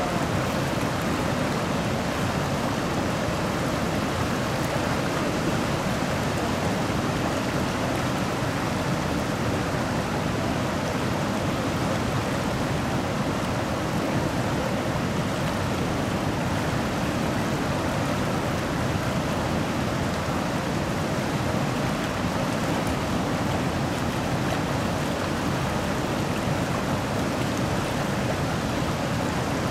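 Fast, shallow river rushing over rapids: a steady, even rush of water.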